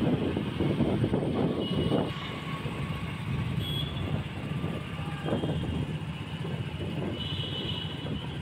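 Steady road and engine noise from riding on an open two-wheeler in traffic, with wind rushing over the microphone. The wind rush is louder for the first two seconds, then settles.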